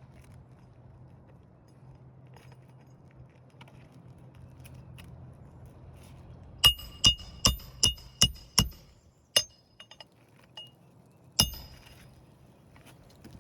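Hammer blows ringing on metal during roof shingle repair: a quick run of six strikes, then two more spaced out.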